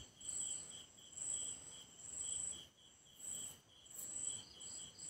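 Crickets chirping: faint, high-pitched trills pulsing about once a second.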